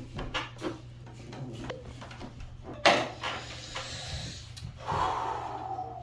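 Knife sawing through a pumpkin's rind to cut off its top: irregular scraping and crunching, with one sharp knock about three seconds in.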